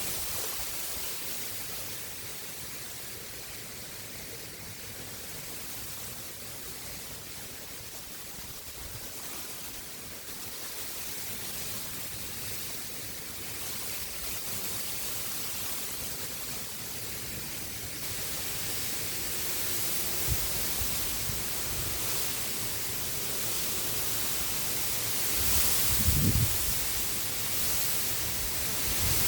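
Steady rushing of river water, with gusts of wind buffeting the microphone as low rumbles, the strongest about three-quarters of the way through.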